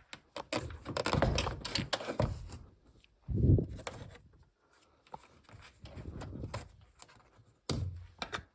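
Clatter, clicks and knocks of hand work with tools and car-door parts, with a dull heavy thump about three and a half seconds in.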